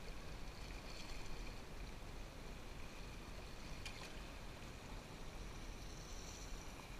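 River water rushing and splashing along a canoe's hull as it moves downstream, a steady noisy wash with a low rumble underneath. A single light knock comes about four seconds in, and faint high chirps come near the start and near the end.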